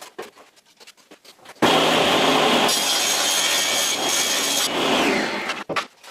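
Table saw ripping a long softwood board: the cut starts abruptly about one and a half seconds in and runs for about four seconds, loudest in the middle, before stopping.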